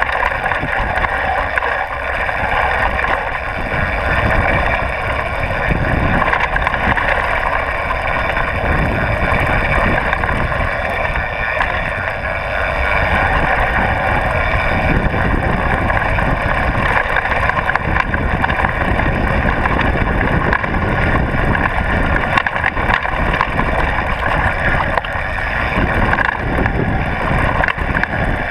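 Downhill mountain bike rolling fast over a dirt trail: tyres and frame rattling and knocking over bumps, under a steady rush of wind on the chest-mounted camera.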